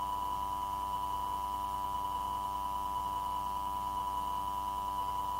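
A steady, unbroken electronic tone with a fainter higher tone above it and a low electrical hum underneath, heard on the air traffic control recording line between radio transmissions.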